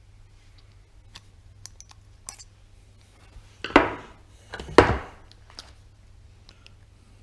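Hand tools working on a disassembled air ratchet's housing: light metallic clicks and scrapes as broken pieces are picked out from inside, with two loud sharp knocks about a second apart near the middle.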